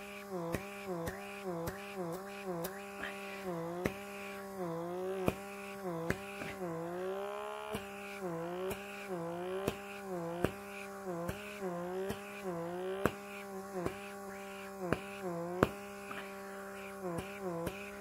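Handheld electric pore vacuum (blackhead remover) running as its nozzle is worked over the nose: a steady motor hum whose pitch dips briefly again and again, with many small clicks throughout.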